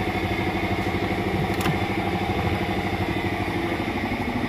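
An engine idling steadily with an even, rapid pulse. A single sharp click comes about a second and a half in.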